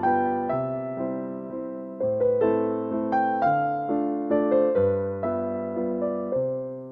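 Background music: a gentle electric piano melody, notes struck and decaying one after another.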